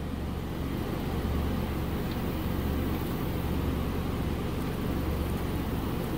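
A steady low hum from running machinery, unchanging throughout.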